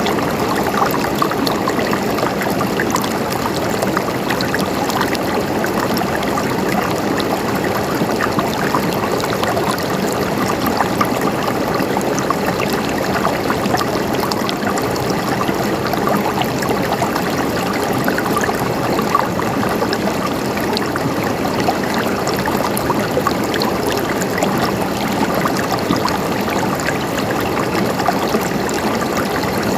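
Running water trickling and gurgling over stones in a steady, unbroken flow.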